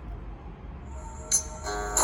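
A Nokia 6500 slide's loudspeaker starts a new ringtone about a second in. It begins with bright, high-pitched electronic tones that come in suddenly, after a short gap with only a low hum.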